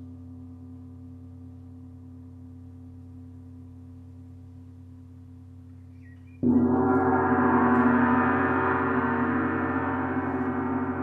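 A gong's ring slowly dying away, then the gong struck again a little over six seconds in: a loud stroke whose ring swells briefly and then slowly fades.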